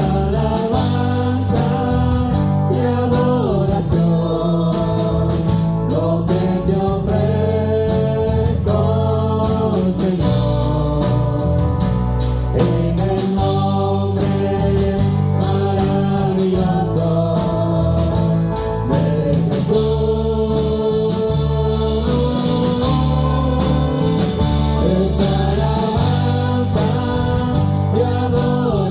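Live gospel worship music: voices singing long held notes over a band with heavy bass and a steady drum beat.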